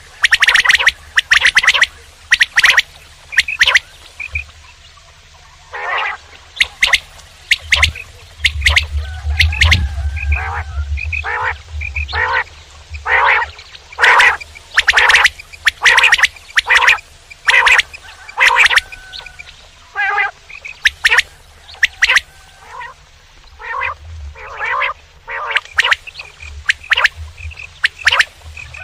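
Common quail calling: short notes repeated rapidly in runs, with brief pauses between the runs. A low hum lies underneath, strongest about a third of the way through.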